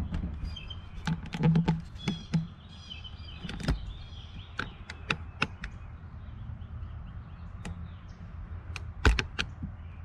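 Scattered light knocks and taps of wood and hand tools being handled, the loudest about a second and a half in and near the end. Birds chirp faintly in the first few seconds.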